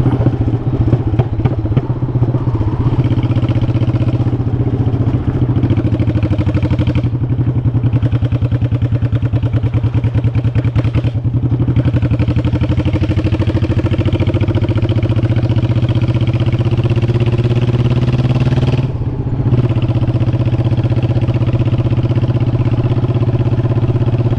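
Honda Shadow Sabre 1100's V-twin engine running loud under way, heard from on the bike. Its pitch climbs gradually in the middle as it accelerates, and it drops off briefly three times as the throttle eases.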